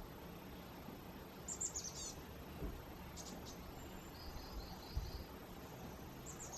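Songbirds calling outdoors: quick series of high chirps about a second and a half in and again near the end, with a short buzzy trill in between, over steady low background noise. A brief low thump about five seconds in.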